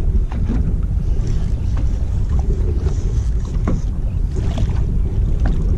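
Steady wind rumble on the microphone over water lapping against a small boat's hull, with a few faint ticks.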